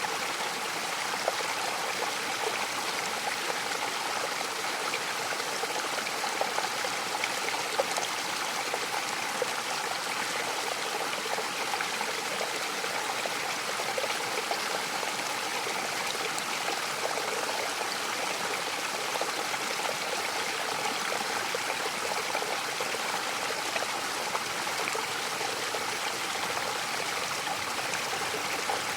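Mountain waterfall: steady rushing and splashing of falling water, with fine crackling spatter.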